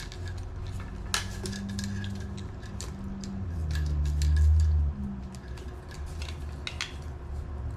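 A small folding gadget being handled and folded: a scatter of light clicks and clinks. Under it a low hum swells, loudest about four seconds in, then settles back.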